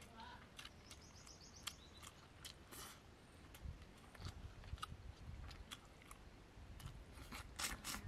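Faint sounds of eating by hand from a banana leaf: fingers mixing rice and fish curry and picking at the fish, with scattered crackles and rubbing against the leaf and soft chewing, busiest near the end.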